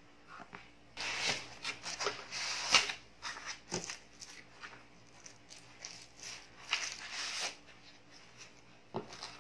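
Rustling and crackling of plastic wrap, cardboard flaps and foam packing blocks being handled and pulled out of a shipping box. It comes in two main bursts with a few sharp taps, the first and loudest about a second in, the second a little past the middle.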